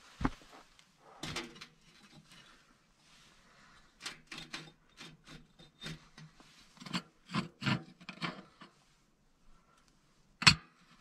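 Scraping and knocking of a blade and hands on the bricks of a brick stove top, then a sharp knock near the end as the cast-iron hob plate is fitted.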